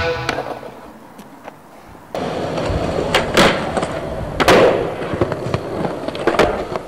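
Skateboard wheels rolling on rough street pavement, starting about two seconds in, with sharp clacks of the board's tail popping and landing. The loudest clack comes about halfway through, and smaller ones follow as it keeps rolling.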